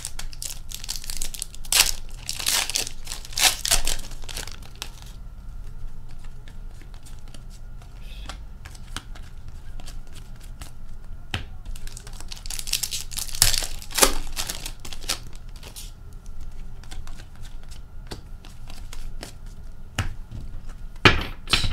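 Upper Deck hockey card packs torn open, their wrappers crinkling in two spells, near the start and again about halfway through. In between, cards are handled with short sharp clicks and taps.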